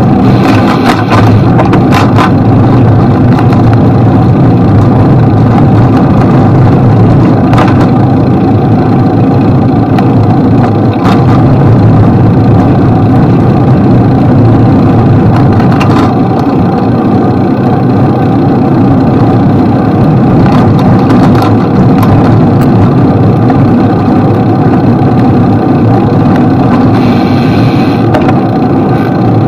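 Loud, steady city traffic noise heard from a bicycle riding alongside: car and truck engines running past, with a few short sharp clicks or knocks scattered through it.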